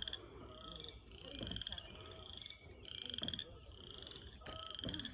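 A chorus of frogs calling: short pulsed trills, each about half a second long, repeating and overlapping every second or so.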